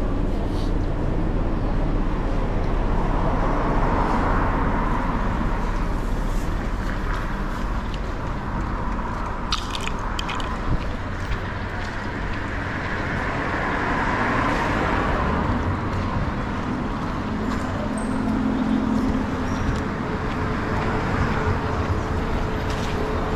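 Steady vehicle noise: a low rumble that swells twice, with a few faint clicks.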